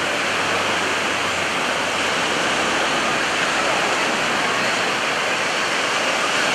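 A steady, even rushing noise, like wind or surf, fills the whole time and buries the distant aerobatic plane. Only a faint low hum shows under it in the first two seconds or so, fading out.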